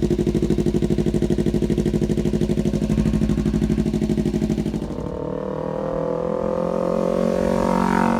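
Kawasaki Ninja 300 parallel-twin engine running through an aftermarket slip-on exhaust: a steady, even exhaust pulse at idle, then about five seconds in the note turns smoother and rises slowly in pitch as the revs come up.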